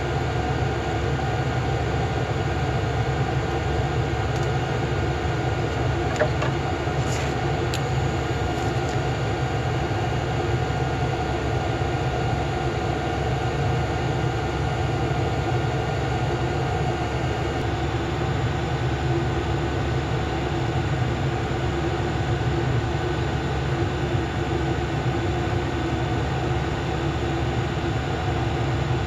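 Steady mechanical hum with several steady tones, with a few faint clicks about a quarter of the way in.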